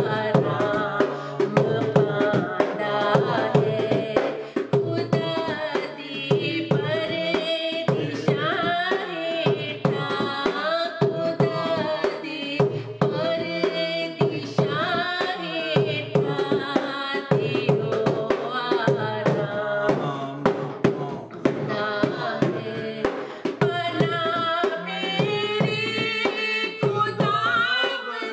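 Punjabi Christian worship song: a steady hand-drum rhythm under a wavering melody.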